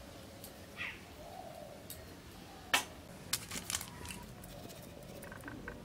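A few light clinks and ticks of stainless-steel bowls and plates being handled while rice flour is tipped into the mixing bowl. One sharper clink comes a little before the halfway point, followed by several small ticks; otherwise it is quiet.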